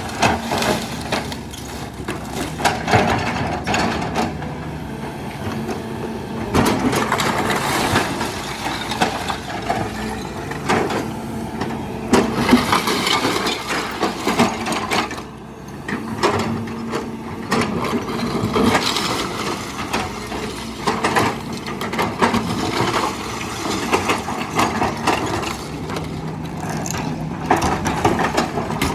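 Hitachi hydraulic excavator's diesel engine running steadily while the house it is demolishing gives way, with repeated knocks, crackles and crunches of breaking debris throughout.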